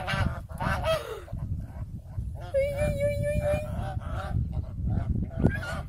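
White domestic geese honking: a short falling call about half a second in, then one long, steady honk near the middle, over a steady low rumble.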